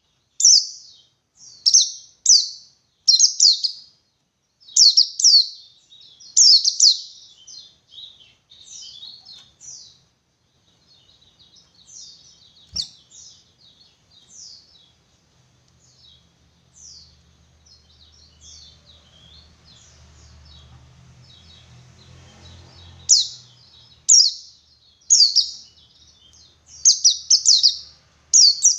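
A white-eye (pleci buxtoni) singing its 'ngalas' song: rapid runs of short, high chirps and twitters in loud bursts, softer for a stretch in the middle, then loud again. A faint low hum sits under the quieter part, and there is one sharp click about 13 seconds in.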